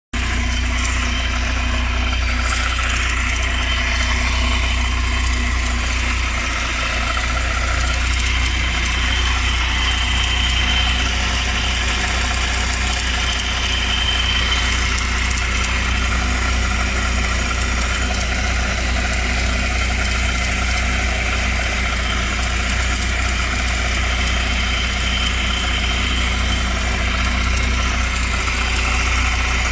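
Chevrolet Niva running steadily with a low drone and a higher whine that swells and fades now and again: an extraneous noise that the owner puts down to the transfer case.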